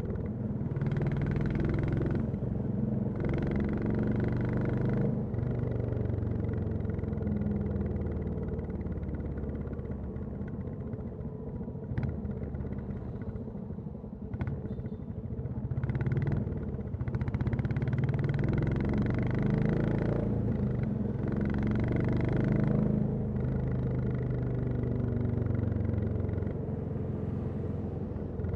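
Royal Enfield Classic 350's single-cylinder engine and exhaust running while riding, the throttle opened in several surges with the engine easing off in between and a quieter, slower stretch in the middle. A single sharp click about twelve seconds in.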